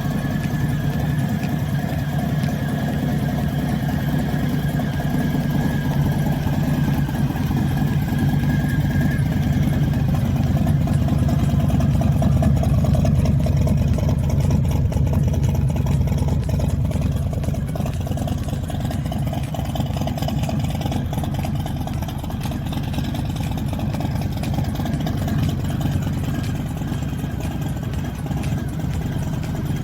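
Harley-Davidson Low Rider S's Milwaukee-Eight 114 V-twin idling steadily through a newly fitted Bassani Road Rage III 2-into-1 exhaust during its first heat cycle, which brings the fresh stainless pipe up to temperature. It gets a little louder around the middle, then settles.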